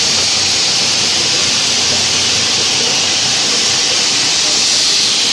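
Mini dal mill (pulse-splitting machine) running with grain passing through it: a steady, loud hiss with a low hum underneath.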